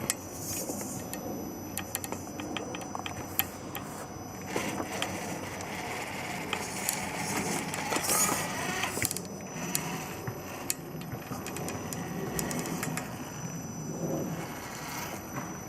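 Lathe motor running on a test run, with a faint steady high whine and many scattered clicks and rattles.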